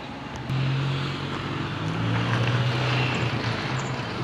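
An engine droning steadily, getting louder about half a second in, with its low hum shifting pitch a little midway.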